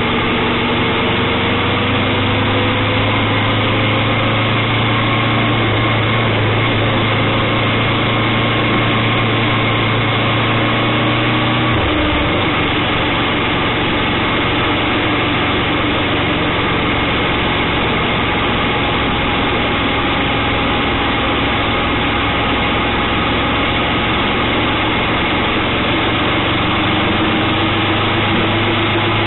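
Motorcycle engine running steadily at road speed under wind and road noise, its pitch rising slowly; the low drone of the engine note drops out suddenly about twelve seconds in and comes back near the end.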